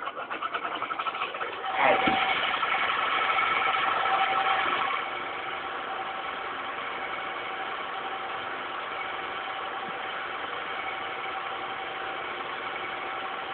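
An engine starting: quickening pulses, then it catches about two seconds in. It runs faster for a few seconds, then settles to a steady idle about five seconds in.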